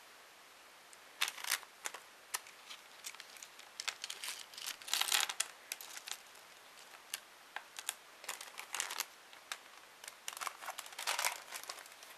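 Packaging crinkling and rustling as items are handled, in irregular crackles and light clicks that start about a second in and are busiest around the middle and again near the end.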